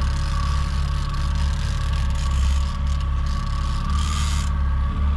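Fishing boat's engine running steadily under way: a constant deep drone with a thin steady whine above it and a hiss over the top that swells briefly about four seconds in.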